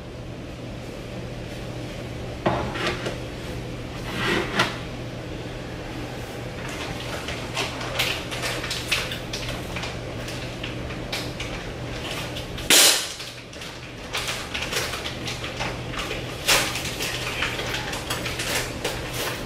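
Scattered knocks and clinks of dishes and a bowl being handled at a kitchen sink, with a louder sudden clatter about two-thirds of the way through and a run of small clicks after it, over a steady low hum.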